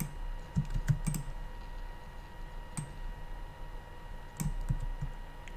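Computer keyboard keystrokes and mouse clicks: a cluster of quick clicks about a second in, a single one near three seconds, and another short cluster around four and a half seconds, over a faint steady electrical hum.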